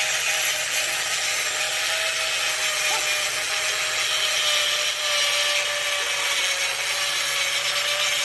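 An electric power tool running steadily under load: a constant motor whine over a loud, even hiss.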